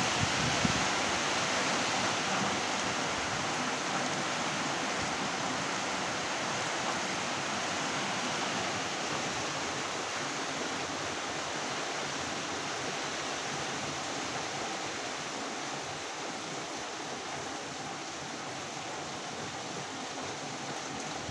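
Rain falling steadily, an even hiss that eases a little toward the end.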